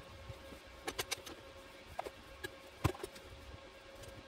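A few sharp clicks and knocks of a rusty square steel tube being shifted and set in a portable metal band saw, the loudest knock near the end, over a faint steady hum.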